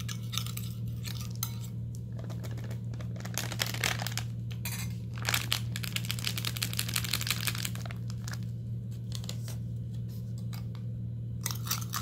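Plastic packet crinkling as it is handled and tipped over a glass bowl, densest in the middle, with a metal spoon clinking and scraping against the glass.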